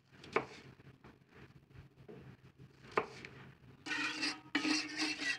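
Kitchen knife chopping an apple on a wooden cutting board: two sharp knocks of the blade hitting the board, about half a second and three seconds in, with faint cutting ticks between. For the last second and a half a louder, steadier rasping noise comes in.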